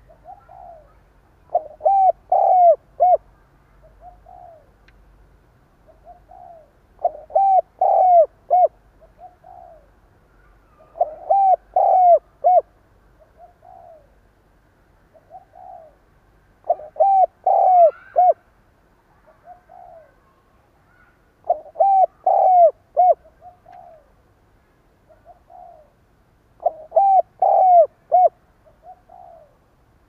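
Spotted dove cooing in the stuttering style: six loud phrases of several quick coos each, roughly every five seconds, with soft single coos in between.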